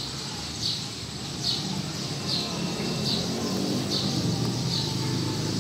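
A bird repeating a short, high, falling call about eight times, roughly every three-quarters of a second, over a steady low background rumble.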